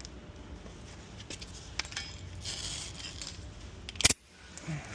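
Light metallic clicks and clinks of small metal tools and parts being handled, with one sharper click about four seconds in.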